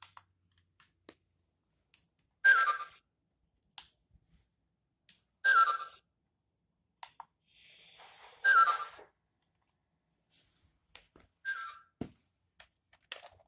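A short electronic chime of a few falling notes, repeated about every three seconds, with scattered sharp clicks in between.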